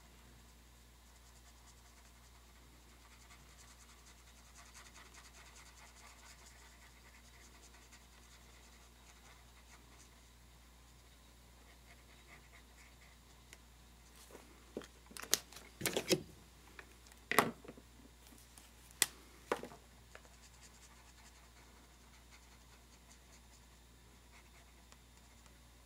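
A pen scratching faintly across paper as someone draws. About halfway through comes a cluster of sharp clicks and taps, the loudest sounds.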